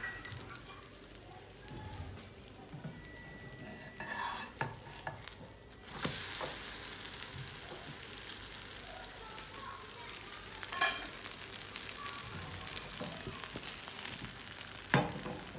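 Mawi (Moroccan water bread) frying in oil in a nonstick pan, sizzling steadily; about six seconds in the sizzle suddenly grows louder as the bread is turned onto its freshly oiled side, with a few short spatula scrapes against the pan.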